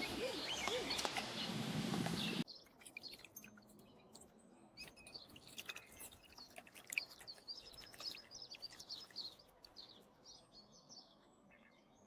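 Small birds chirping, with scattered high chirps and clicks. A louder, noisy passage with low wavering sounds cuts off abruptly about two and a half seconds in, leaving the chirping quieter.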